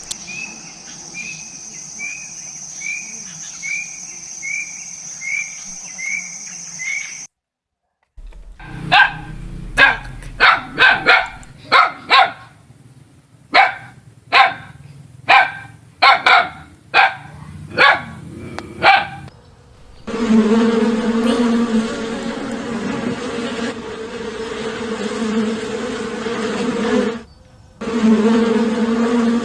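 A bird giving a run of short, evenly spaced chirps for about seven seconds. After a brief gap, a dog barks about fifteen times. A steady insect buzz, like a bee or fly, then takes over, broken once shortly before the end.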